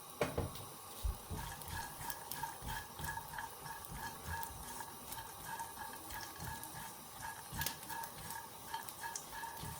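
Spoon stirring chopped nuts and raisins frying in a little ghee in a small kadai, with soft irregular scrapes and light knocks against the pan. A faint steady high whine sits underneath.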